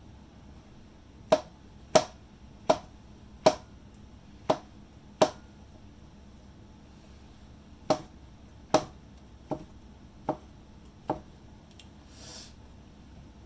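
Kitchen knife slicing shiitake mushrooms on a cutting board: eleven separate sharp knocks of the blade hitting the board, six at an even pace, a short pause, then five more.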